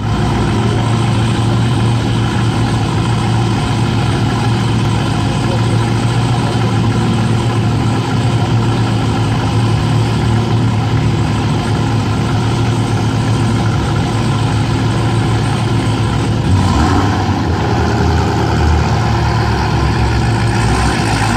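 Chevrolet Camaro ZL1's supercharged 6.2-litre V8 idling steadily, with a change in the sound about three-quarters of the way through.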